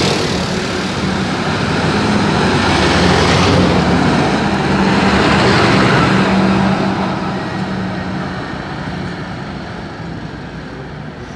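Diesel fire engines driving past close by, the engine note strongest as the nearest truck passes, then fading steadily as it drives away down the street.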